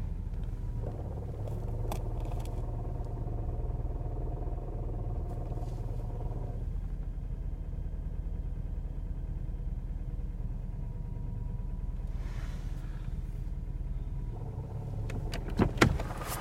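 Car engine idling with its manual gearbox knocking. The owner says the knock disappears completely when the clutch pedal is pressed, and suspects a worn gearbox input shaft bearing. A couple of sharp clicks near the end.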